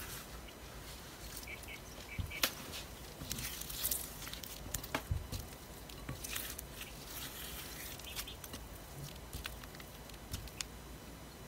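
A silicone spatula stirring and scraping a thick cream cheese mixture in a glass bowl: soft squishing and scraping, with scattered light clicks against the glass.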